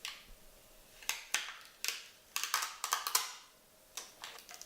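Small clicks and scrapes of hands handling a laptop's LCD screen panel and releasing its connector, a dozen or so short irregular sounds, busiest in the middle.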